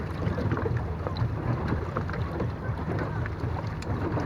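Water splashing and lapping against a small boat's hull as it moves, with wind rumbling on the microphone and scattered small drips and ticks.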